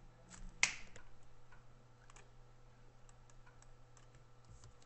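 Computer mouse clicking: one sharp click about two thirds of a second in, then several fainter scattered clicks, over a faint steady low hum.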